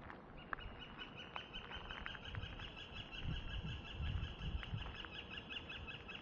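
A bird trilling: a fast, even run of high notes repeating many times a second, starting about half a second in and going on steadily, with a few low thuds underneath in the middle.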